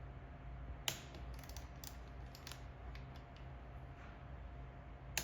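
Hand tools clicking and ratcheting on the caliper bracket bolts as they are torqued to about 12 to 13 newton metres: a sharp click about a second in, a run of lighter clicks after it, and another sharp click near the end.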